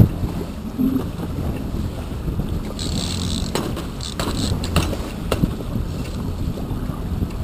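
Wind buffeting the microphone over the low steady rumble of a trolling boat under way, with a few short hisses and clicks in the middle.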